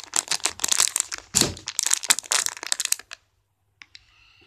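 A plastic packet crinkling and crackling in the hand, for about three seconds, then stopping.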